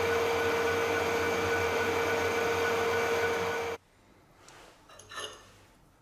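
Metal lathe running steadily with a steady whine while a boring bar opens out the bore of a diamond grinding wheel. The sound cuts off abruptly about four seconds in, followed by a faint clink of metal parts being handled.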